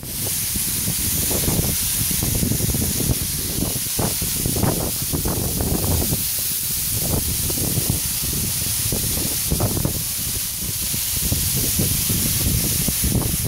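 Tews Falls, a tall ribbon waterfall, heard from behind its falling curtain: water and spray pouring down and splashing on the rocks in a steady rushing hiss, with uneven low rumbling surges throughout.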